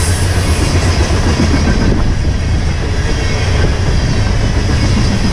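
Freight train of tank cars rolling past, a steady loud rumble of steel wheels on the rails.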